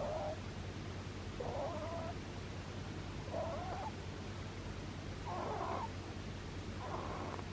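Sleeping rabbit snoring: a short, pitched sound with each breath, repeating about every two seconds, four times over, above a steady low hum.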